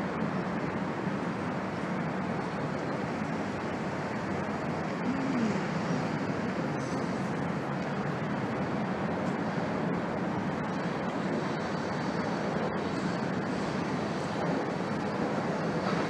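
Freight cars of a long train rolling over an elevated railroad bridge: a steady rumble of wheels on rail.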